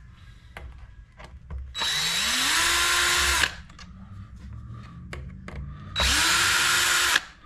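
Cordless drill backing screws out of a 3D-printed plastic fan housing in two runs, the first about a second and a half long and the second about a second. Each time the motor whine rises in pitch and then holds steady. Light clicks of handling come between the runs.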